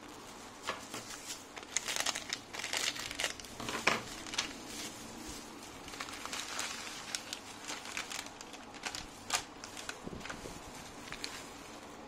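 Plastic instant-ramen packet crinkling and crackling as gloved hands handle and open it, in irregular bursts of sharp crackles that are busiest a couple of seconds in.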